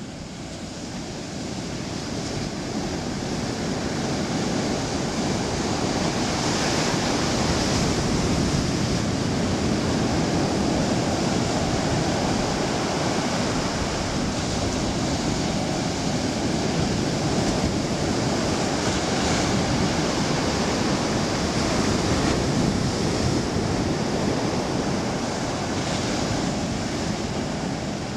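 Ocean surf breaking and washing up onto a sandy beach: a steady rushing that fades up over the first few seconds, then holds with gentle rises and falls as the waves come in.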